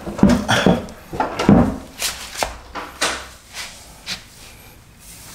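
Clacks and knocks as a long plastic side-molding strip is handled and positioned against a car's lower door panel. The knocks cluster in the first two or three seconds and then thin out to a few light ticks.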